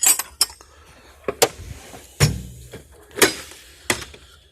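Steel tool box drawers and metal hand tools being handled: a string of separate metal clacks and knocks, with a heavier thud a little over two seconds in.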